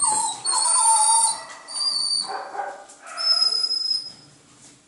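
Dog whining: a string of high-pitched, drawn-out whines over the first four seconds, fading near the end.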